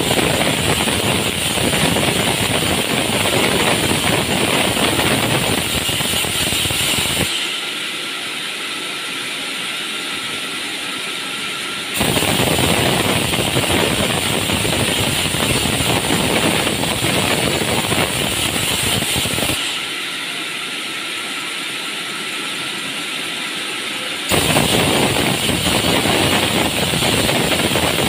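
Large vertical band saw ripping timber: three loud cutting passes, with the saw running on alone, quieter, in two gaps of about four to five seconds between them.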